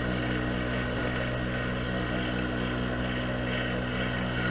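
Small homemade wood lathe running steadily: its electric motor hum, with a regular pulse in it, turning a small wooden workpiece.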